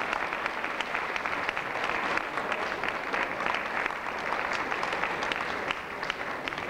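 Audience applauding: steady clapping that thins out near the end.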